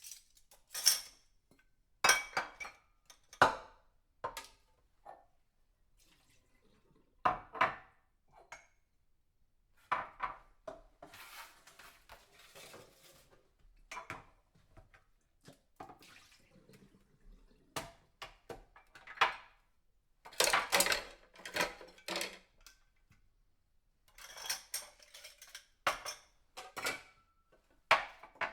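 Washing up by hand: dishes and cutlery clattering and clinking against each other at irregular moments, with water splashing now and then.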